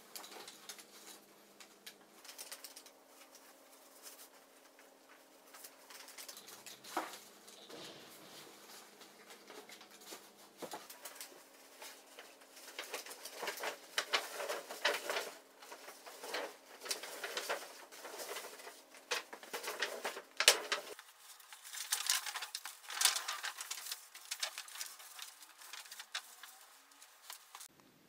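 Large sheets of handmade paper rustling and crackling as the pages of a folded book are handled and opened out by hand, in uneven spurts that grow louder in the second half.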